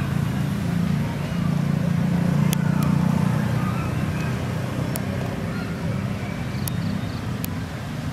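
A steady low rumble with a few sharp clicks scattered through it.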